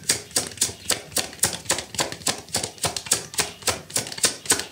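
A steady, even rhythm of sharp clicks, about five a second.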